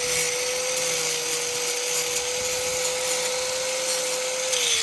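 Power grinder running steadily, grinding through the old motorcycle drive chain to break it off. Its whine starts to wind down near the end as the tool is let go.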